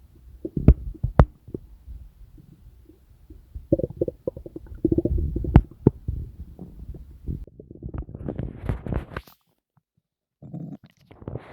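Human stomach and intestines gurgling with digestion: irregular bubbling rumbles with a few sharp pops, a dense run of gurgling in the middle, breaking off for about a second near the end before starting again.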